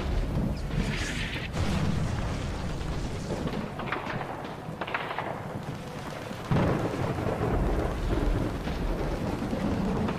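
Rumbling sound effects: deep booms over a steady noisy hiss, with a sudden loud boom about six and a half seconds in.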